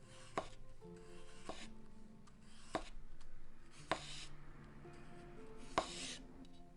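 A sharp Japanese kitchen knife cutting on a cutting board, about five strokes: each a short scraping hiss with a sharp knock of the blade on the board, over background music.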